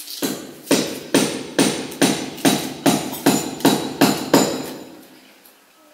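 About ten heavy knocks struck in an even rhythm, a little over two a second, each with a short ring, stopping about four and a half seconds in.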